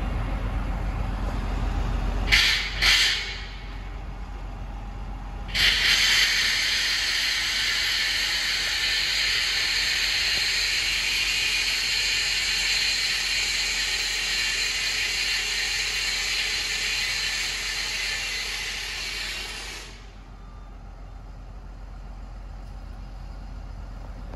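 Compressed air venting from a Kamaz truck's air system: two short hisses, then a long steady hiss lasting about fourteen seconds that cuts off suddenly. A low diesel idle runs underneath.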